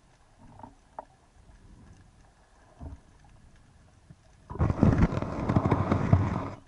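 Kelp fronds brushing and scraping over an underwater camera housing: a loud, crackling rustle lasting about two seconds near the end that stops suddenly, after a few faint knocks.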